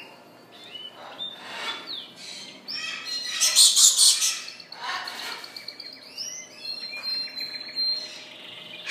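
Domestic canary singing: a varied song of rapid chirps, trills and sliding whistles, loudest about a third of the way through, with a long held whistle later on.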